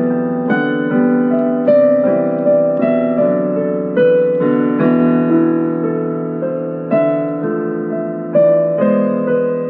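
Gentle piano music: chords and melody notes struck about every half second to a second, each fading out.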